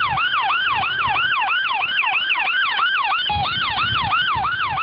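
Ambulance's electronic siren on a fast yelp: rapid, even sweeps of pitch about three times a second. About three seconds in the sweeps break for a brief steady tone, then carry on.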